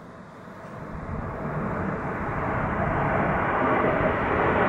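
Jet engine noise from a formation of six military jet fighters passing overhead: a broad rushing rumble that grows steadily louder as the formation approaches.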